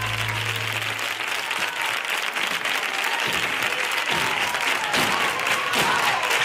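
Studio audience applauding at the end of a song, growing a little louder near the end. The band's last low note dies away in the first second.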